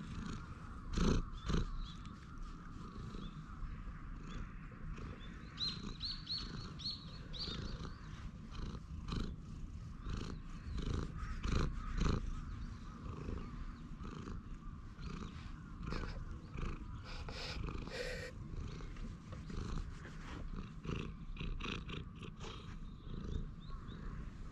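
Brown tabby cat purring steadily right at the microphone while being stroked, with the rustle and knock of fur and hand brushing against the camera.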